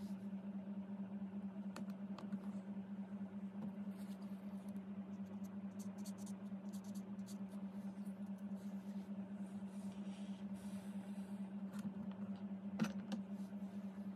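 A steady low hum that pulses evenly and rapidly, with a few faint ticks and one sharper click near the end.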